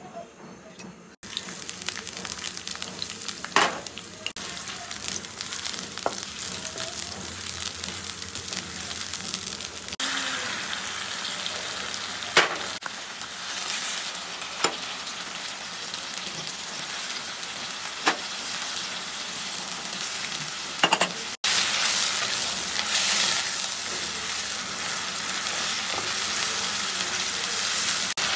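Hot oil in a steel karahi sizzling steadily as ginger paste and onions fry and are stirred with a wooden spatula, with a few sharp knocks of the spatula against the pan. The sizzle starts about a second in and grows louder near the end.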